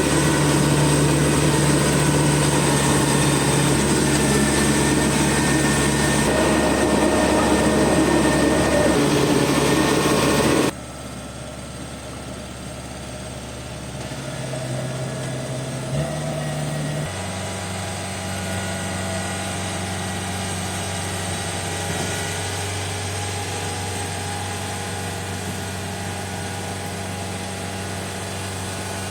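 Kubota DC70 rice combine harvester's diesel engine running steadily under working load. It drops abruptly in level about eleven seconds in, then steps in pitch a few times.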